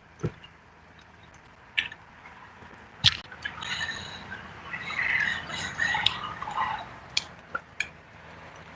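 Squawking, chirping bird calls in the middle of the stretch, among scattered sharp clicks.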